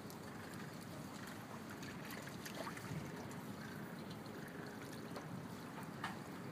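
Steady trickling of running water in a pool, with a few faint clicks scattered through it.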